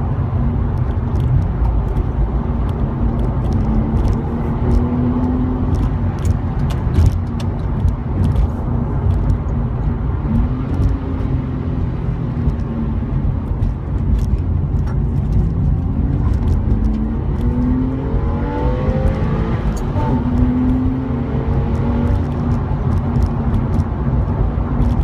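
Porsche 911S flat-six engine and road rumble heard from inside the car, loud and steady. Over the last several seconds the engine note rises in pitch several times as the car accelerates hard.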